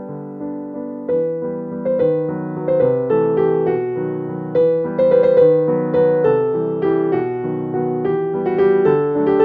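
Background piano music, a melody played over chords, with the notes struck and fading one after another.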